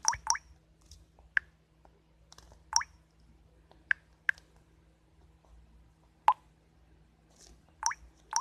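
Short pitched taps of a smartphone's on-screen keyboard, a tap every second or so at an uneven pace, as a chat message is typed.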